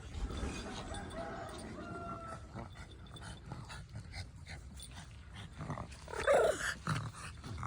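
Pomeranian puppy giving a short, loud yip about six seconds in, against faint light clicking.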